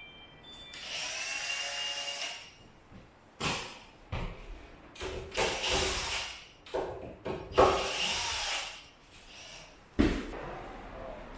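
Power drill whirring in a short burst while a lock is fitted to a door, followed by a series of sharp knocks and clunks of hardware being worked into the door.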